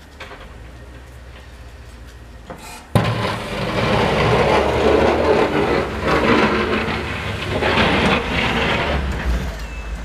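Pickup truck with a front snowplow blade clearing a driveway: its engine runs low at first, then a sudden clank about three seconds in and loud scraping as the blade grinds over the pavement pushing snow, with the engine running under it; the scraping eases near the end.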